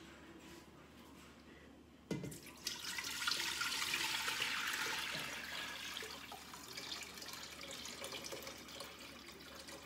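Chicken broth poured from a stainless steel bowl into a stainless steel pot: a short knock about two seconds in, then a steady splashing stream that is loudest at first and slowly thins out toward the end as the bowl empties.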